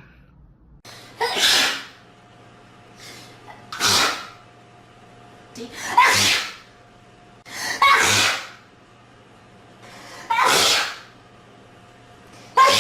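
Repeated hard sneezes, six in all, coming about every two seconds, the last one right at the end.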